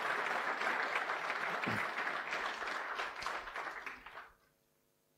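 Audience applauding, dying away about four seconds in.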